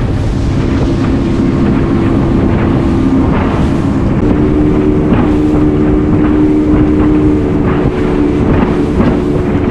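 Motorboat engine running under way, a steady drone that grows stronger about four seconds in, over rushing water and wind on the microphone.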